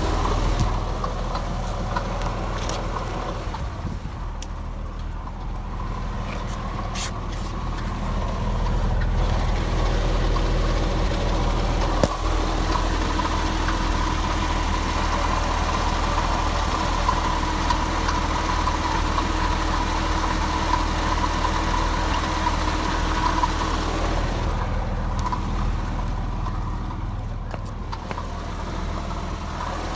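2001 Porsche Boxster S (986) 3.2-litre flat-six engine running at a steady idle with a rattle, which the owner puts down to a failing water pump. A steady whine sits over the engine sound and is strongest through the middle.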